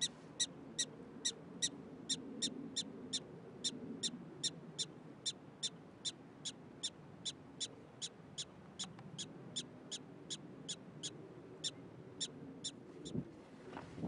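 Black-tailed prairie dog barking: a long, even run of short, sharp, high-pitched calls, about two and a half a second, growing a little fainter and stopping near the end.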